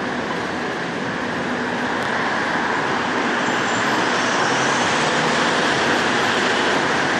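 Steady city traffic din from buses and cars, a continuous even noise that grows a little louder about halfway through.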